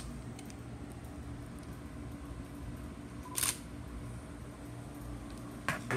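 Nikon D3300 DSLR's shutter and mirror firing once, a short mechanical clack about three and a half seconds in, just after a brief beep, as a photo is taken.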